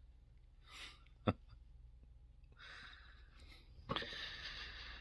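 Faint rustling and breathy hiss with a sharp click about a second in and a knock near the end.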